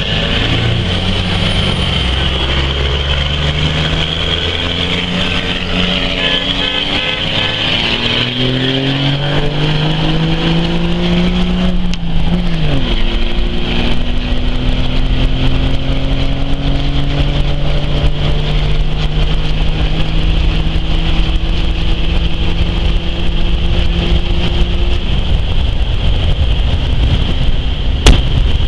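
Cummins turbo-diesel inline-six pulling hard under full acceleration, heard from inside the truck's cab: the engine note climbs steadily, drops sharply at a gear change about twelve seconds in, then climbs again. A steady high whine runs underneath, and a sharp crack comes near the end.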